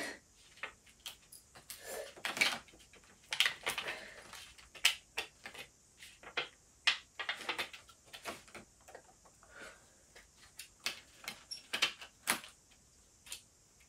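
Irregular small clicks, taps and short scrapes of hands undoing a small screw and handling parts in the plastic drive bay of an HP ProBook 450 G2 laptop.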